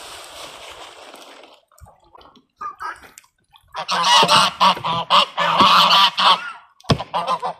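Water splashing that stops after about a second and a half, then a flock of domestic geese honking loudly for a few seconds, with a single sharp knock near the end.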